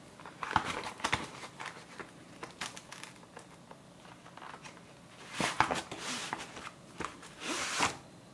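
Cardboard box being opened by hand, its flaps scraping and the foam insert tray sliding out, with scattered clicks and rustles. The handling gets louder about five seconds in and again near the end.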